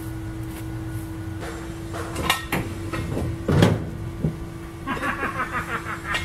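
1967 VW Beetle body shell coming down off its jack stands and settling onto the floor pan: a series of metal clunks and knocks, the loudest about three and a half seconds in, then a quick run of rapid rattling near the end.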